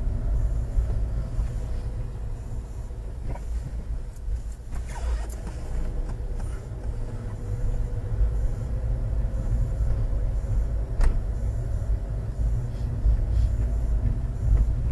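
Motorhome engine and road rumble heard from inside the cab while driving, low and steady, with a couple of sharp knocks or rattles about five seconds in and again near eleven seconds.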